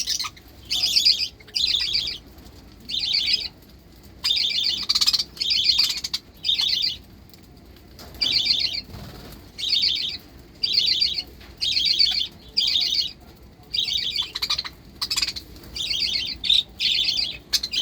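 Budgerigars calling in short, high, raspy bursts, about one a second, a steady run of repeated calls from hungry birds waiting to be fed.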